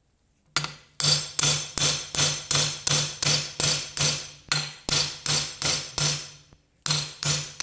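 Steady hammer blows on a steel drift, about three a second, each with a ringing metallic note, driving a tight pressed-in part of the quad's rear axle assembly out without a hydraulic press. There is a brief pause near the end before a few more strikes.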